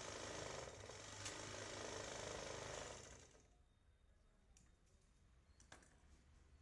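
Three-thread overlock machine running, then stopping about three seconds in, leaving a few faint clicks.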